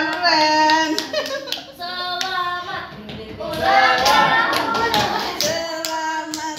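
A small group clapping by hand while voices call out in drawn-out, sing-song tones.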